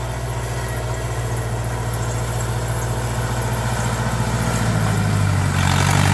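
Massey Ferguson farm tractor's diesel engine running steadily under load while pulling a disc harrow down a slope, growing slowly louder as it approaches.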